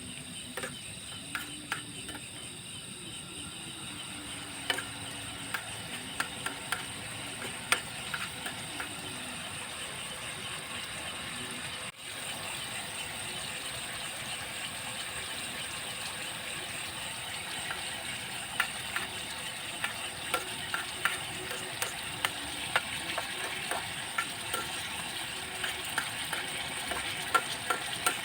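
Food frying in a pan, a steady sizzle with scattered pops and crackles. It drops out briefly about twelve seconds in.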